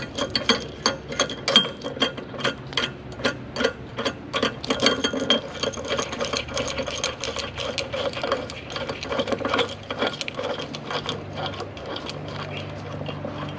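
Nut being spun by hand along a long threaded steel bolt, with washers and spacers clicking and rattling against it, as a bushing press tool is taken apart. The clicking is rapid and uneven and thins out near the end.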